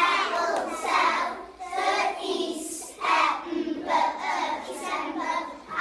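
A class of young children chanting a phonics rhyme together in a steady rhythm, clapping along.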